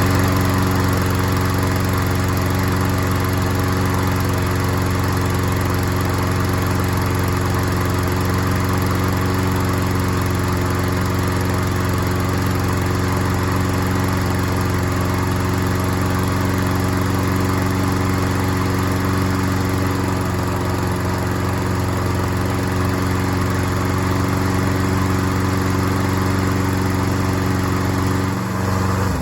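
Troy-Bilt self-propelled lawn mower's small engine running steadily at a constant speed after a carburettor needle seat replacement, then winding down as it is shut off at the very end.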